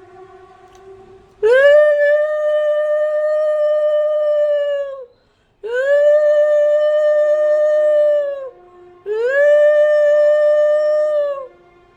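Conch shell (shankha) blown three times in long single-pitch blasts, each swooping up into the note and sagging at the end. The first blast lasts about three and a half seconds, the other two about two and a half.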